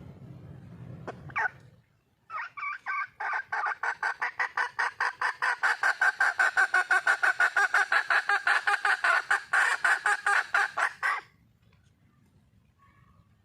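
Red junglefowl hen giving a long, rapid run of clucks, about six a second for some nine seconds, then stopping suddenly: a wild hen's call that the uploader presents as calling for a mate.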